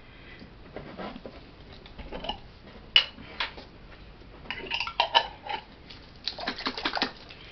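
Clinks and light knocks of small containers and utensils being handled on a work table: one sharp clink about three seconds in, then clusters of taps and clinks in the middle and near the end.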